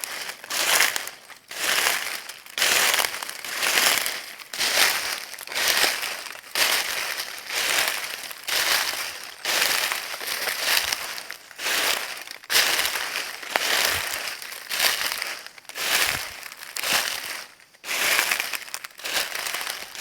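Footsteps crunching through dry leaves, an even pace of about one step a second, each step a dry crackling crunch.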